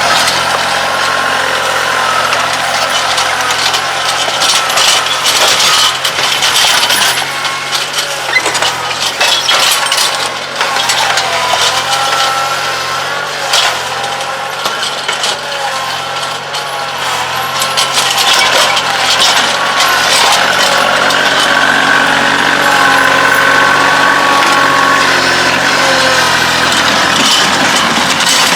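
Kioti CK2610 compact tractor's diesel engine running under load, with a whine that rises and falls and rattles and knocks throughout as its front-loader bucket pushes a fallen pine treetop.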